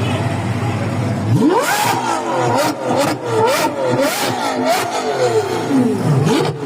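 Lamborghini Revuelto's V12 engine revved hard: after a steady running note it climbs sharply about a second and a half in, then rises and falls in several quick blips with sharp cracks from the exhaust, before dropping back and starting to climb again near the end. Loud throughout.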